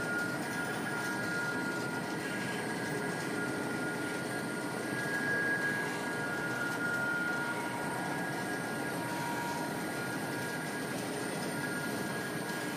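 Wood pellet production line running: pellet mills and pellet conveyors making a steady machine noise with a steady high-pitched whine over it, a little louder about halfway through.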